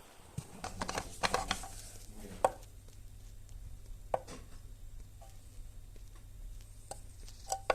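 Scattered sharp knocks and clicks, a few seconds apart and closer together near the end, over a low steady hum.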